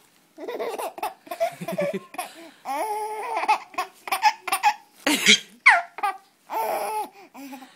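Baby laughing in a run of short giggles and squeals, one of them a sharp squeal that falls in pitch a little past halfway.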